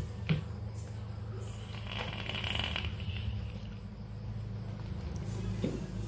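Hands handling the plastic chassis of a Traxxas TRX-4 RC crawler: a sharp click about a third of a second in, then light rustling. A steady low hum runs underneath, and near the end clattering starts as the chassis is picked up.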